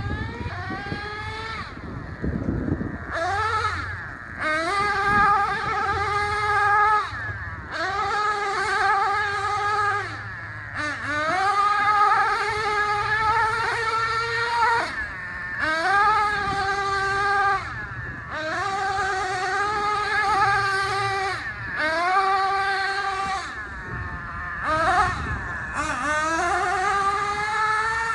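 Traxxas Revo 3.3 RC truck's small two-stroke nitro engine revving hard in repeated bursts. Each burst rises to a high, steady whine, holds for a second or two, then drops back before the next.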